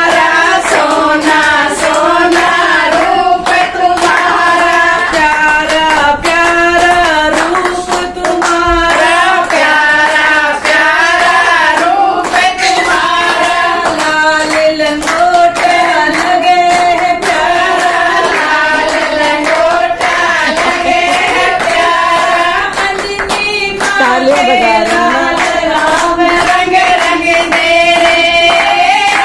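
A group of women singing a Hindu devotional bhajan to Hanuman together, clapping their hands along in time.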